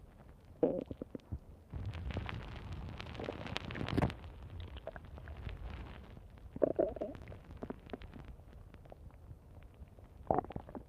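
Stomach growling: short gurgles about half a second in, near seven seconds and again near ten seconds, with a longer rumble from about two to four seconds in.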